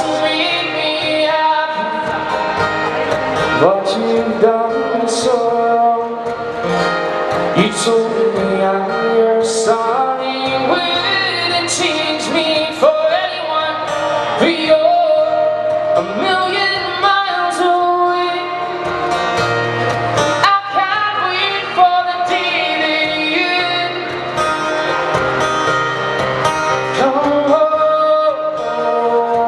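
A man singing a song while accompanying himself on acoustic guitar, a live amplified solo performance.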